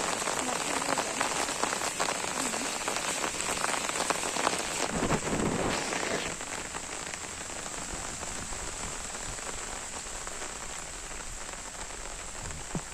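Steady rain falling on surfaces, with many individual drops ticking through the hiss. There is a brief louder rush about five seconds in, and the rain sounds a little softer after about six seconds.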